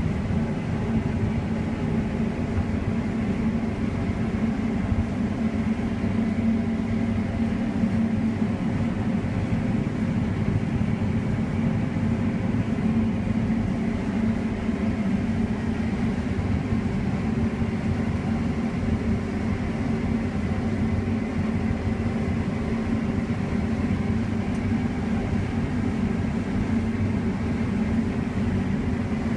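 John Deere S690i combine harvester running steadily under load while harvesting wheat: an even machine drone with a steady low hum.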